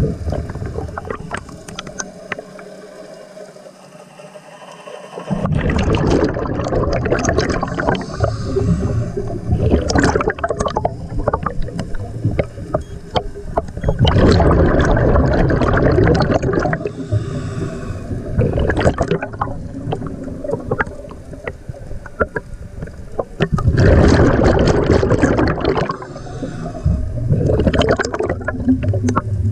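Scuba diver's exhaled bubbles rushing from the regulator, heard underwater. They come in long bubbling bursts a few seconds apart, with quieter breaths between.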